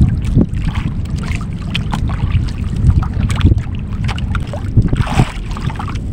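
Wind buffeting the microphone aboard a small outrigger fishing boat: a steady low rumble with scattered light knocks and a brief rush of noise about five seconds in.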